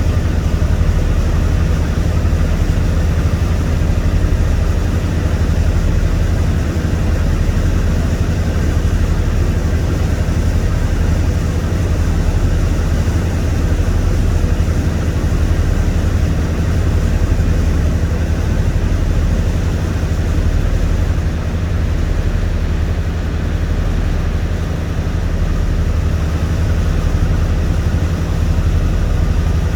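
Boat engine running steadily on board, a low, even drone with a constant rushing noise over it.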